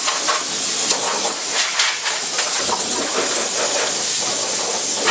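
Handheld gas torch flame hissing steadily against the engine bay's sheet steel, heating the old seam sealer so it lets go, with a few light ticks.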